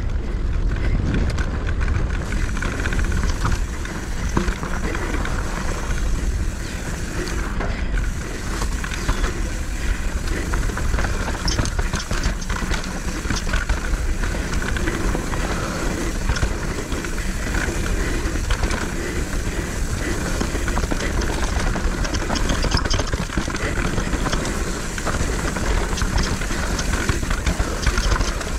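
Mountain bike riding fast down a dirt trail: wind buffeting the microphone with a heavy low rumble, tyres on loose ground and the bike rattling and clattering over rough terrain.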